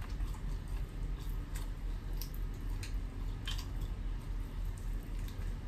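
Close-miked eating sounds: scattered wet mouth smacks and clicks of someone chewing food, a few spread across the stretch, the strongest about three and a half seconds in, over a steady low hum.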